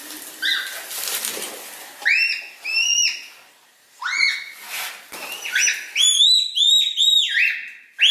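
Red panda giving high-pitched whistling squeals: a few separate calls, then a quick run of short squeals near the end.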